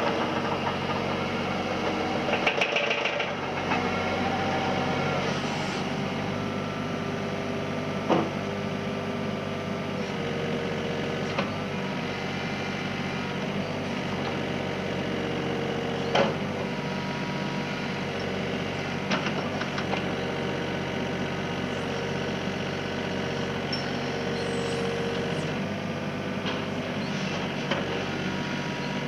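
Diesel engine of a Kobelco SK28SR-6 mini excavator running steadily at idle, with a few sharp clicks or knocks over it.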